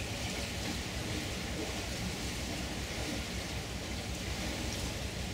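Steady rushing noise of wind and river water, with a fluttering low rumble of wind buffeting the microphone.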